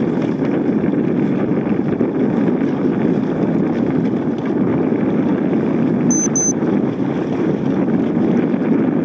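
Steady rushing rumble of a boat under way on open water, with wind buffeting the microphone.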